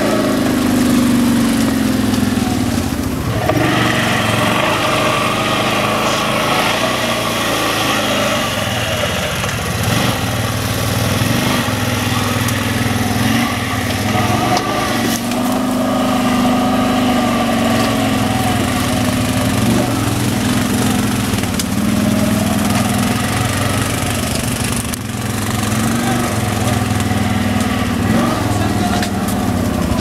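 Terralander 800 quad bike's engine running at low trail speed, its revs rising and falling over and over as it picks its way along a muddy track, with other ATV engines close by.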